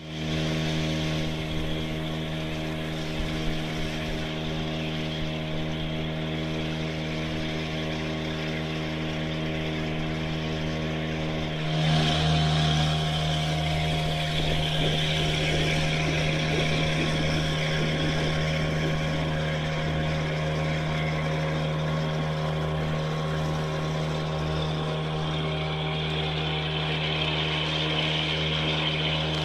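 Small boat motor running at a steady speed, driving a wooden sailboat with its sail down, with water rushing along the hull. Its tone shifts slightly about twelve seconds in, then holds steady again.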